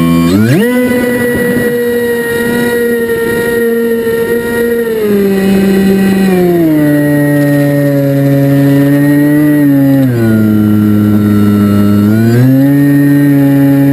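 FPV quadcopter's electric motors and propellers whining in flight. The pitch steps down in stages as the throttle eases, then climbs again near the end.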